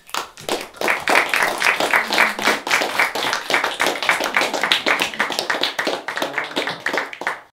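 A small audience applauding with a dense patter of hand claps, which cuts off suddenly near the end.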